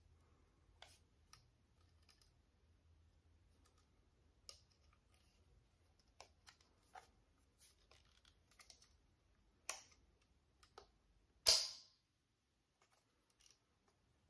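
Faint scattered clicks and small knocks of a plastic walkie-talkie being handled as its belt clip is pressed and slid to get at the battery compartment. The loudest click comes about three-quarters of the way through, with another a little before it.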